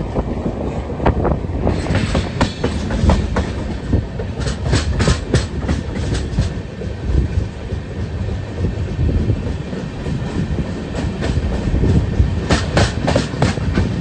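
Passenger train running on the rails, heard from aboard at an open door or window: a steady rumble with bursts of clickety-clack as the wheels cross rail joints, in clusters about two seconds in, around five seconds in and near the end.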